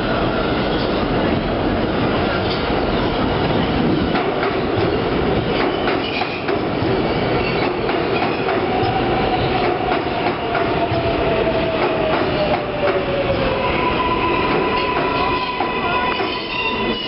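New York City Subway 6 train of R142A cars pulling into a station and slowing to a stop. Its wheels clatter over the rail joints, the motor whine falls in pitch as it slows, and a steady high squeal sets in near the end.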